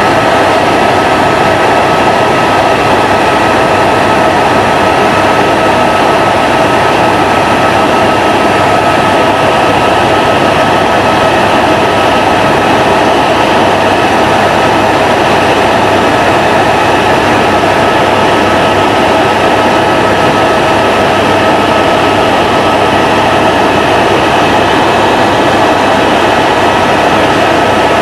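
Aircraft engine noise heard from inside the cabin during low-level flight: a loud, steady drone with a constant hum, unchanging throughout.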